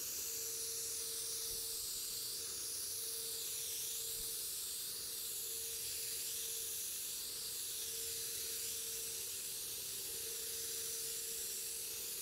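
Gravity-feed compressed-air spray gun hissing steadily while spraying clear coat, with a faint steady hum underneath.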